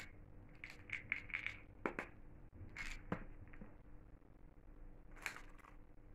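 Faint, scattered small clicks and taps of hands handling a plastic vitamin bottle and soft gel capsules, with a slightly louder click a little after five seconds.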